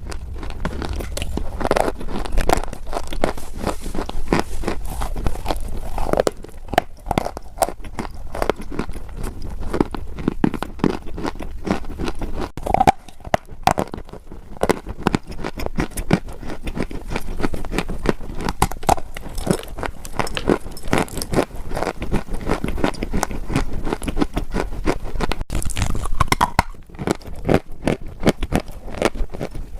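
Dry clay crunching and crackling, a dense run of close-up crunches and crackles with brief pauses.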